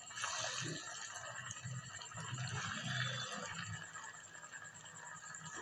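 Chhana (paneer) balls sizzling and bubbling as they deep-fry in hot oil in an aluminium kadai, as more balls are dropped in one by one.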